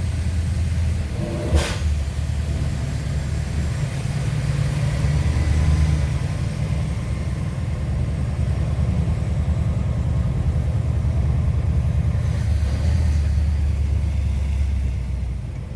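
Scania R730's 16-litre V8 diesel engine running as the truck drives, a steady low rumble that swells louder twice as it pulls. A single sharp click about a second and a half in.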